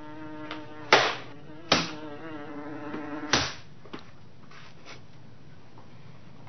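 A housefly buzzing, its pitch wavering, broken by three sharp swats about a second, a second and a half, and three seconds in. The buzzing stops at the third swat, when the fly is struck.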